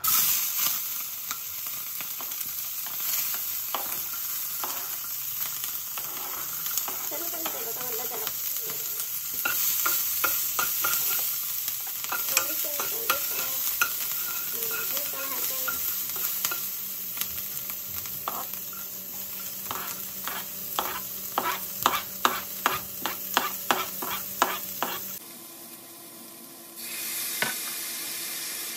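Chopped capsicum, cabbage, beans and green chillies hitting hot oil in a kadai and sizzling loudly, stirred with a spatula that scrapes and knocks against the pan. Toward the end the knocks come as a steady run, two or three a second, before the sizzle drops away.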